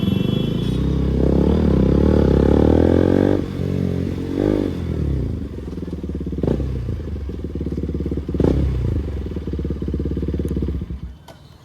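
KTM RC 200's single-cylinder engine running through a loud aftermarket exhaust, revved up in the first few seconds, then idling with three short throttle blips about two seconds apart. It is shut off near the end.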